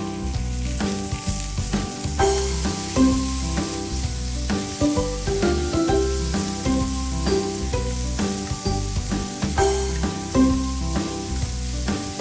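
Pork belly, mushrooms and green pepper sizzling in an oiled frying pan as they are stir-fried with chopsticks. Background music with a bass line and a stepping melody plays alongside.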